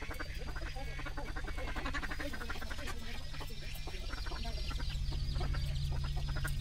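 Animal calls over a steady low hum.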